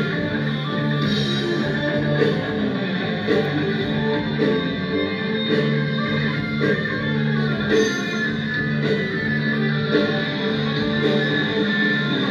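Music with guitar playing throughout, at a steady level.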